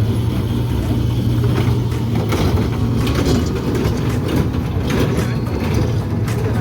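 Amusement-park kiddie train ride running: a steady low motor hum with continual rattling and clicking from the cars and track.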